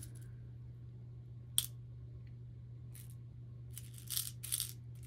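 Small beads being threaded onto a beading string, clicking as they drop against the beads already on it: one sharp click about a second and a half in, a faint tick later, then two short scraping rustles near the end.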